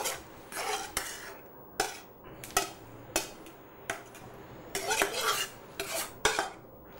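A spoon scraping and knocking against a vessel as sautéed vegetables are stirred into pearl millet and wheat flour for adai batter. The strokes come irregularly, about one a second, with a busier run of scraping around the middle.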